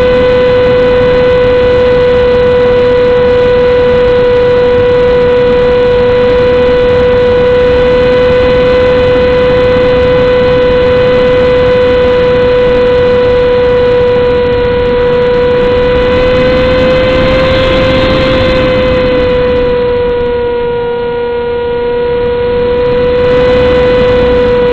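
Radio-controlled model airplane's motor and propeller heard from its onboard camera: a loud, steady whine. About 17 seconds in the pitch lifts slightly with a brief rush of noise, then eases back.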